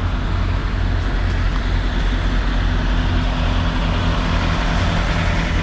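Semi-truck's diesel engine idling: a steady low hum with an even hiss over it.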